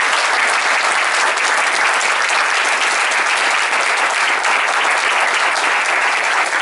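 Audience applauding steadily, many people clapping together at the end of a lecture.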